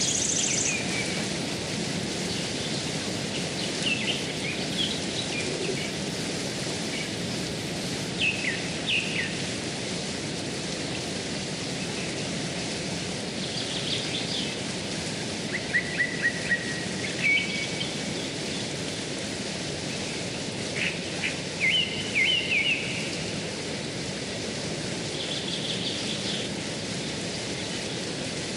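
Steady rushing of a shallow rocky stream, with short high bird chirps every few seconds, in small clusters.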